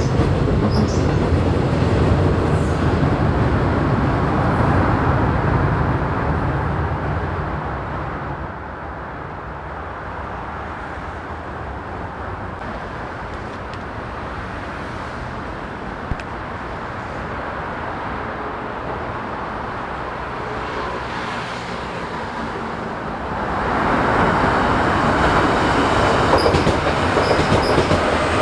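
Seoul Subway Line 2 trains at a station: a train runs loud, then fades over a couple of seconds as it pulls away, leaving a lower rumble, and about three-quarters of the way through another train's noise rises sharply.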